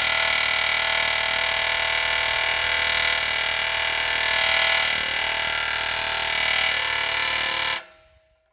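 Angle grinder with a cutoff wheel running steadily at full speed, cutting through the head of a steel frame rivet; it stops abruptly near the end.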